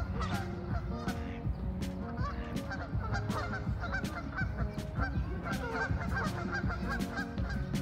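Canada geese honking repeatedly in short calls, with sharp clicks scattered throughout.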